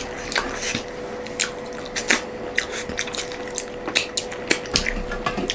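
Close-up wet eating sounds of rice and fish curry eaten by hand: fingers squishing and mixing the food, with mouth smacks and finger licking, heard as a string of short wet clicks.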